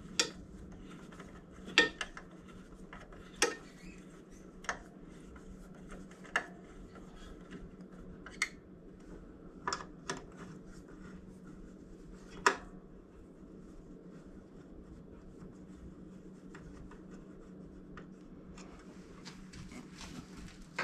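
Sharp metal clicks and taps of a hand screwdriver turning screws into the steel platen bracket of a 2x42 belt grinder, about one every second or two, stopping about two-thirds of the way through. A steady low hum runs underneath.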